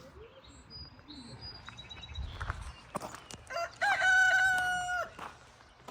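Rooster crowing once, about three and a half seconds in: a few short rising notes, then a long held note that cuts off. Faint high bird chirps come before it.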